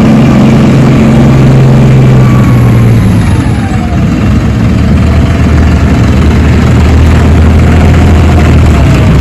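Heavy tank engine running loudly, its low drone dropping in pitch about three seconds in.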